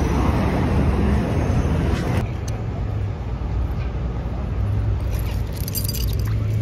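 City street traffic noise with wind buffeting the microphone while cycling in a bike lane. About two seconds in, a cut gives way to a steadier outdoor street rumble with a few light clicks near the end.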